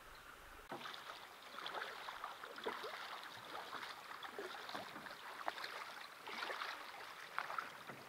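Canoe paddle dipping and pulling through pond water, splashing and dripping in irregular strokes that begin under a second in.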